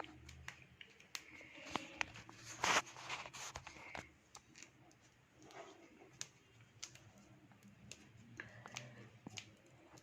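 Quiet handling sounds of cloth and thread being worked by hand: scattered small clicks and light rustles, with one louder brief rustle a little under 3 seconds in.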